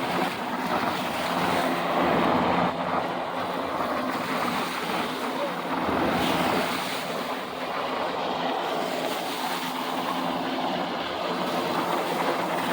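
Military helicopters flying, a steady drone that swells and fades slowly, mixed with wind noise on the microphone and surf.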